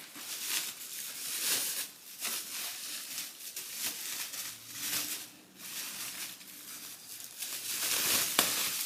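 Packaging crinkling and rustling as items are handled and unpacked, in irregular bursts, with a sharp click near the end.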